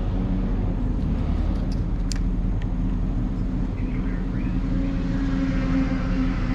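A motor vehicle engine running at a steady idle: a low, even hum that holds the same pitch throughout.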